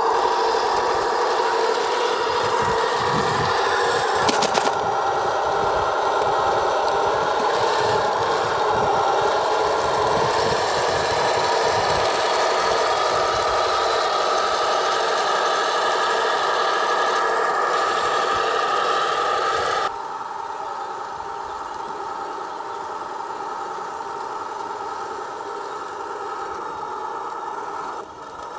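Radio-controlled model Centurion Mark 5 tank driving, with a steady engine-like drone and rattling. A faint click comes about four seconds in. The sound turns quieter and thinner about two-thirds of the way through.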